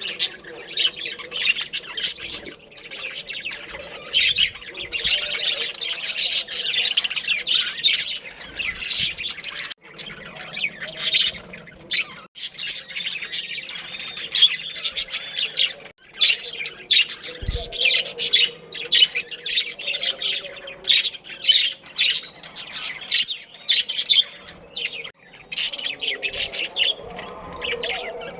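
Budgerigars chirping and squawking, with many quick calls overlapping in a continuous chatter.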